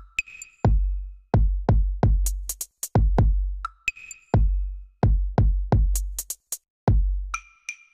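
Electronic background music built on a drum-machine beat: deep kick drums with long low tails, in an uneven pattern, with sharp claps and hi-hats over them.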